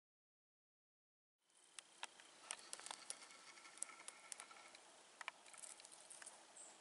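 Silence at first, then faint woodland ambience with scattered light ticks and rustles.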